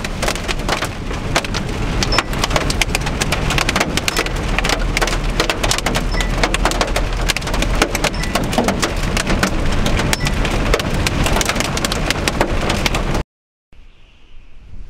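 Large hail and rain pelting a moving car, a dense, irregular clatter of hailstones striking the body and windshield over the low rumble of the car on the road. The clatter stops abruptly near the end.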